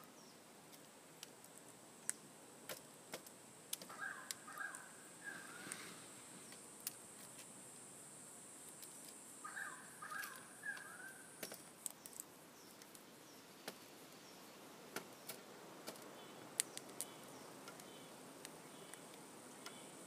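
Male Australian king parrot feeding at a metal seed tray: scattered sharp clicks of its beak picking and cracking seed. A bird gives two short runs of three chirping notes, about four and ten seconds in, over a steady high-pitched hum that stops about twelve seconds in.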